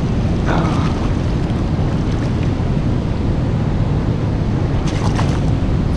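Wind buffeting the microphone over the steady rush of churning river current along the side of a small boat, with a couple of brief splashy sounds on top.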